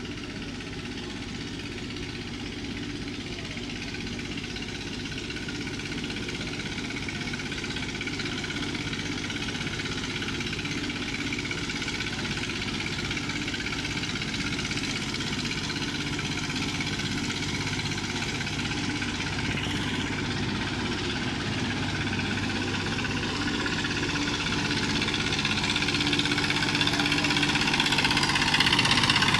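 A construction machine's engine running steadily, its sound slowly growing louder toward the end.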